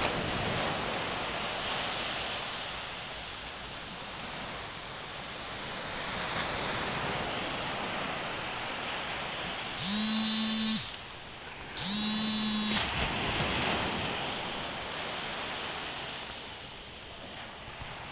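Small waves breaking and washing up over the sand at the water's edge, a steady rush of surf. About ten seconds in, two short horn-like tones sound, each under a second and about two seconds apart.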